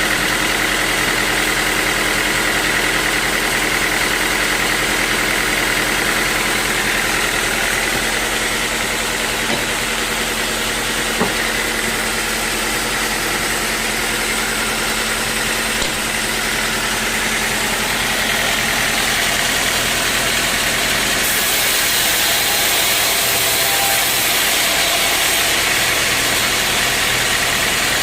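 Sawmill machinery running steadily, an engine note under a continuous high whine that eases after about eight seconds.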